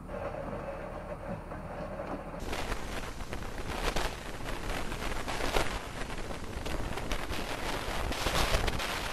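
Dashcam recording of driving in traffic: a low hum of engine and road noise, which about two seconds in gives way to a louder, harsher rush of wind and road noise with frequent knocks and rattles as the camera shakes.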